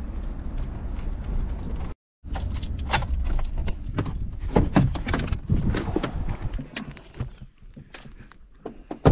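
A pickup truck driving slowly over a dry, rocky, cracked lakebed: a low rumble of engine and tyres with many irregular clunks, knocks and rattles from the truck and stones underfoot, which grow sparser and quieter near the end.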